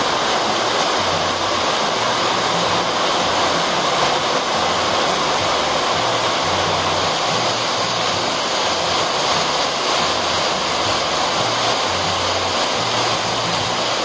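Heavy rain drumming on a corrugated metal roof, heard from beneath it: a loud, dense, unbroken roar that holds steady throughout.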